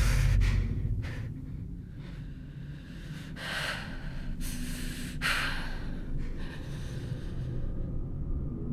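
A person's heavy, strained breathing and gasps during a struggle, with about four sharp breaths over the first five seconds.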